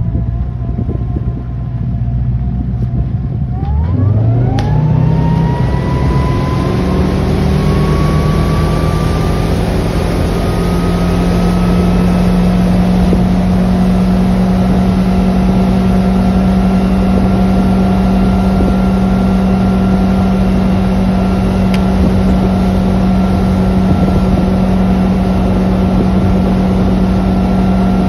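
Ski boat's engine running low, then opened up about four seconds in, its pitch climbing steadily for several seconds as it pulls a barefoot skier off the dock. It then holds a steady high run at skiing speed, with a rush of wind and water over it.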